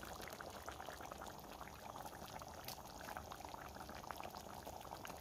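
Fish curry bubbling in a pot, a steady run of many small pops.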